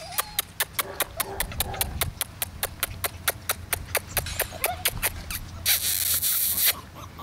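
Faint, short puppy whimpers over a quick, even clicking, about four clicks a second. A brief rustle comes near the end.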